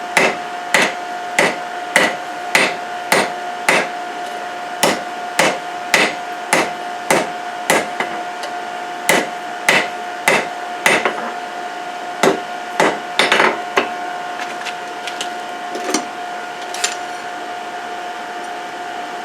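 Hammer blows on hot steel over an anvil, forging chainsaw chain into a Damascus billet: strikes at about one to two a second for the first eleven seconds, then slower and scattered, stopping a couple of seconds before the end. A steady hum runs underneath.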